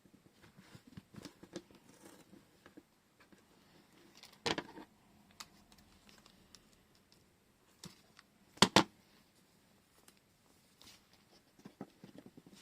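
Small handling noises of paper and washi tape at a craft table: light rustling and scratching with scattered ticks. Two sharper, louder clicks or snaps stand out, one a little before the middle and a louder one about two-thirds through.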